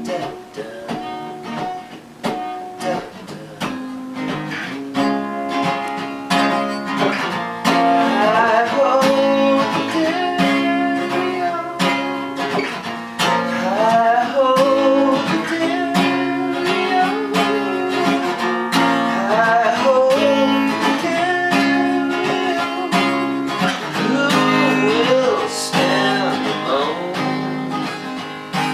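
Live acoustic guitar music: strummed chords under a gliding, wavering melody line, filling out and growing louder several seconds in.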